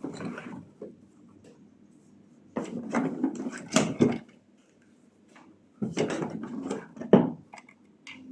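Handling noise from the tools and their packaging being moved about: two stretches of clattering with clicks and knocks, the sharpest knock about seven seconds in.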